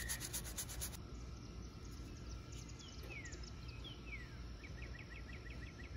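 Faint outdoor ambience: a brief quick rubbing at the start, then a bird gives two falling whistled notes and a quick series of short chirps near the end, over a faint steady insect-like tone.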